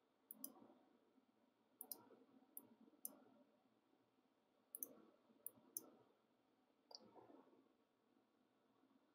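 Faint computer mouse clicks: about eight sharp clicks, some in quick pairs, spread over the first seven seconds.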